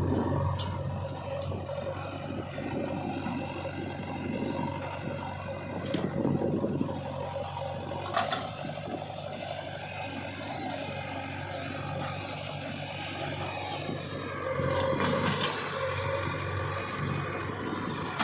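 JCB 3DX backhoe loader's diesel engine running steadily, with scraping and clattering at intervals, louder at about six seconds in and again near the end.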